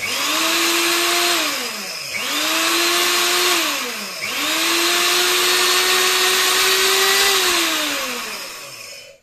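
LEJIEYIN electric high-speed grain grinder pulsed three times while grinding oats into fine flour. Each time the motor whines up, runs and winds down: two short pulses, then a longer run of about five seconds that winds down near the end.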